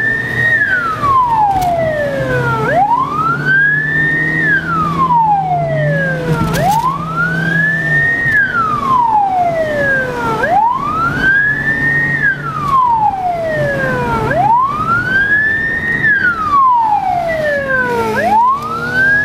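Police car siren wailing in slow cycles, each rising quickly and then falling slowly, about one every four seconds, with the car's engine running underneath, heard from inside the car.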